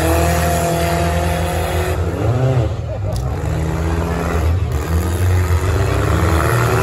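Demolition derby cars' engines running loud and revving, their pitch climbing in the first couple of seconds and again near the end.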